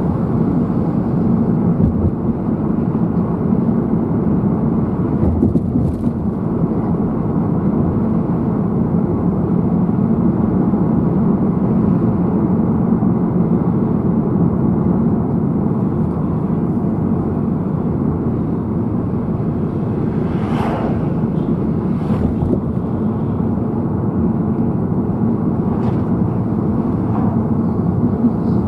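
Steady road and engine noise inside a moving car's cabin: a constant low drone with tyre rumble, and a few faint ticks.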